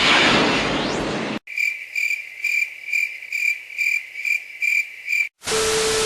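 Crickets chirping steadily, about two chirps a second, after a loud rushing noise cuts off abruptly about a second and a half in. Near the end the chirping cuts out and another noisy sound with a steady hum begins.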